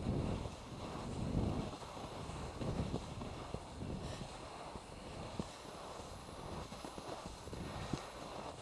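Outdoor wind rumbling on the microphone, with scattered light clicks and rustles.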